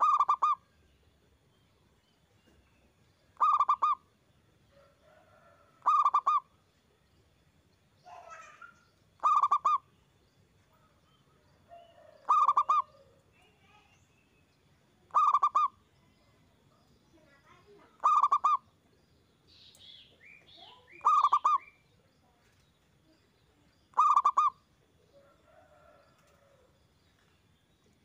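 Zebra dove (perkutut) cooing: a loud call of rapid pulsed notes, repeated nine times at about three-second intervals. Softer, shorter bird calls come in between.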